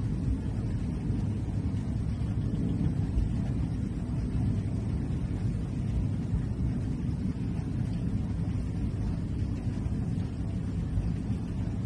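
A steady low rumbling noise that wavers in level throughout, with no distinct events.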